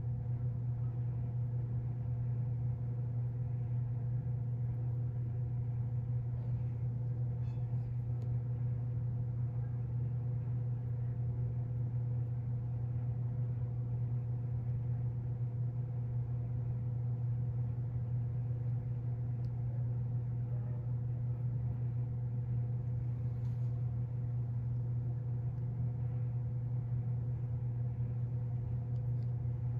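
Steady low mechanical hum with a thin higher tone above it, unchanging throughout.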